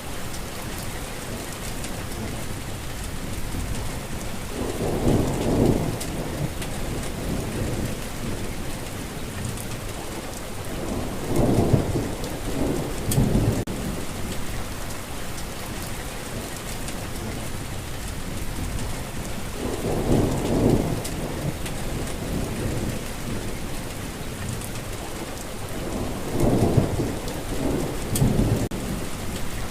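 Steady rainfall with thunder rumbling four times, swelling and fading about every six to eight seconds.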